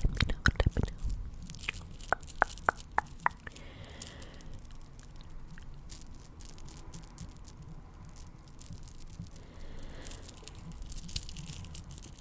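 Close-miked ASMR sticky, crackling clicks: a dense run in the first second, a few sharp clicks over the next couple of seconds, then faint scattered clicks over a soft hiss.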